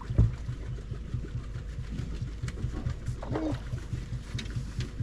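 Boat motor idling, a low rumble with a steady even pulse, with one sharp knock about a quarter second in and a short pitched call around three seconds in.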